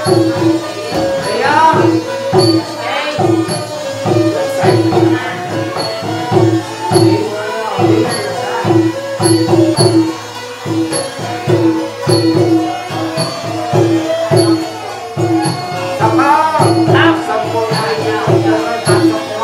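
Traditional wedding ceremony music: hand drums keep a quick, steady rhythm under a repeating melody with gliding notes, and high ticks fall regularly on the beat.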